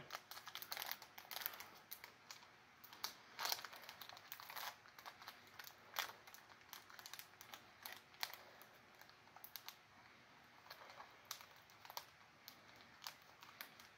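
Faint crinkling and scattered small clicks of packaging handled by hand: a small sealed package, holding a pin, that is hard to get open.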